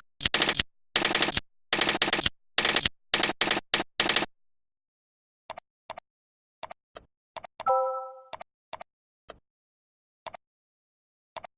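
Computer keyboard and mouse clicks: quick runs of key clatter for about four seconds, then single clicks about once a second. A short electronic chime sounds just before the eighth second.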